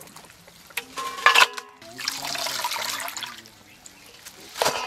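Chopped radish greens being washed by hand in a steel bowl of water: water splashes and streams off lifted handfuls. Two sharp metallic clanks with a short ring, about a second in and near the end, from the steel bowls.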